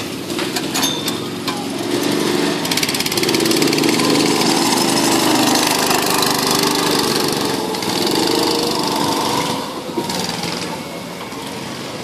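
Small petrol go-kart engine running as a kart drives close past, getting louder, then fading away near the end.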